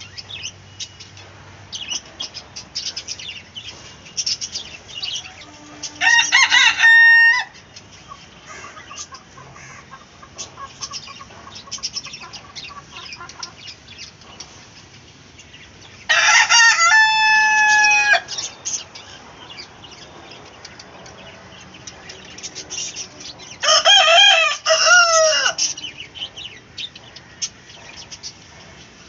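Free-ranging Indian country chickens: a rooster crows three times, each crow about one and a half to two seconds long, with short clucks and chirps from the flock running on in between.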